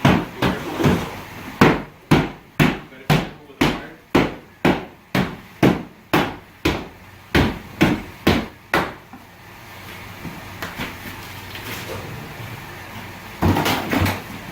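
A hammer striking wood, about two blows a second for some nine seconds, typical of tearing out cabinetry. A short burst of knocking and clattering follows near the end.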